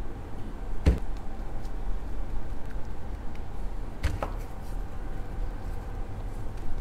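Gloved hands dredging chicken wings in a flour and potato-starch mix. Two sharp knocks, about a second in and about four seconds in, sound over a steady low hum.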